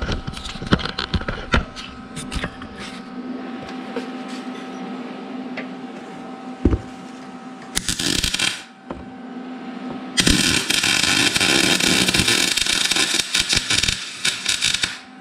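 A few knocks and clatters of metal, then a MIG welder's arc crackling as it welds the steel Z-bar mount in place: a short burst about eight seconds in, then a steady, longer bead from about ten seconds in.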